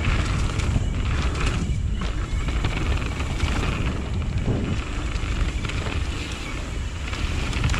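Wind rushing over the microphone with the low rumble of a mountain bike rolling over a dirt trail, steady and loud.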